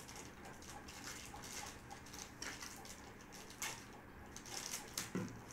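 Light rustling and scattered small clicks of hands handling a small speaker and its lead while unpacking them.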